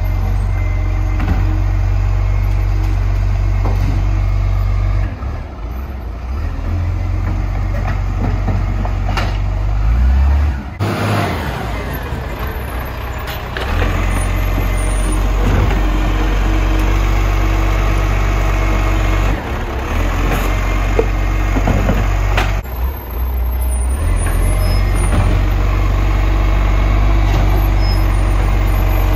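Garbage truck running close by: steady diesel engine rumble with mechanical noise and a few short knocks, dipping briefly in level a couple of times.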